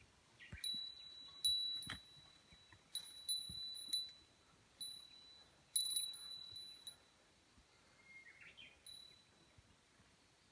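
A small metal bell, the kind of bear bell hikers hang on a pack, jingling with the walking: single high rings come at uneven intervals, half a second to a second apart, and thin out to faint rings over the last few seconds.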